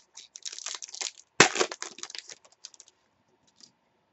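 Crinkling and crackling of a trading-card pack's wrapper being torn open and the cards pulled out. A dense run of crackles with one sharp, loud crack about a second and a half in, dying away after about three seconds.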